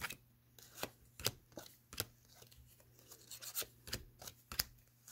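Stiff new playing cards, sticking together, being pulled apart and handled: a string of about ten sharp, irregular clicks and taps.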